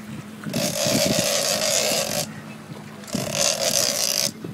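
Game-fishing reel whirring in two bursts of about two seconds each, with a short pause between, as line is worked on a big wahoo; a boat engine hums steadily underneath.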